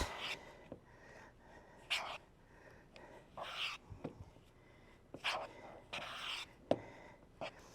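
Spoon stirring a thick biscuit dough of biscuit mix, milk and shredded cheddar in a mixing bowl: a handful of short, soft scraping strokes at irregular intervals, with a few light clicks.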